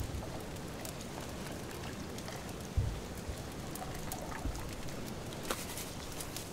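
Water pouring in a stream from a kettle spout into a cast-iron Dutch oven, a steady splashing rush, with a dull thump about three seconds in and scattered light crackles.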